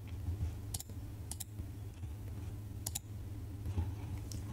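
Computer mouse clicks, a handful of sharp single clicks and a double click about three seconds in, over a steady low hum.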